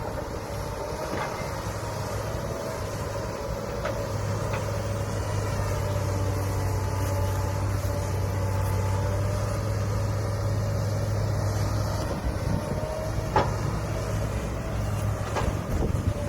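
Diesel engine of heavy earthmoving machinery running steadily, with a few sharp clanks.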